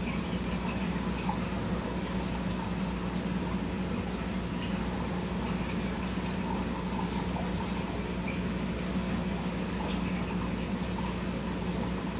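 Aquarium filtration running: a steady splash and trickle of water with a constant low motor hum.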